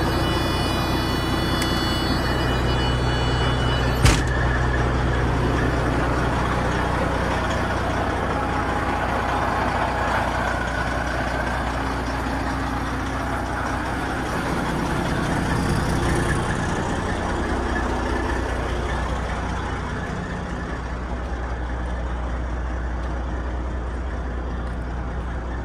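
Semi truck's diesel engine idling steadily, just started and warming up and building air pressure. One sharp snap about four seconds in.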